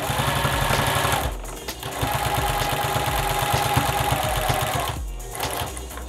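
Sewing machine with a walking foot running at a steady stitch through the layers of a quilted mat. It sews for about a second, pauses briefly, sews again for about three seconds and stops near the end.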